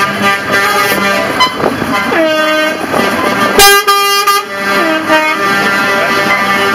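Truck air horns blowing a series of long notes, some sagging in pitch as they die away, with the loudest blast about three and a half seconds in. A heavy truck's engine runs underneath.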